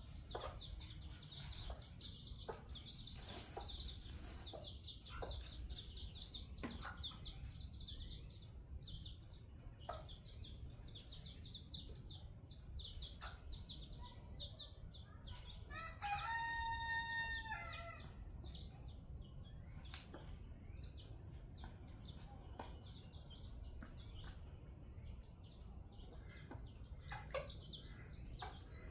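Silkie chicks peeping continually in short high chirps. About halfway through, a rooster crows once, a long call in several steps that is the loudest sound.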